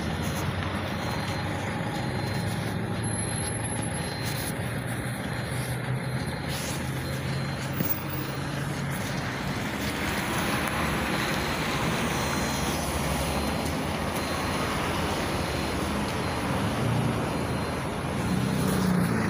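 GAZelle Next minibus engine running steadily at a stop, with street traffic hissing past. Near the end the engine gets louder as the minibus pulls away.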